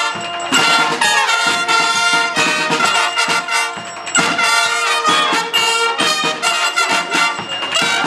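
Brass fanfare band playing a tune: trumpets and other brass sounding chords in short phrases, with a bass drum.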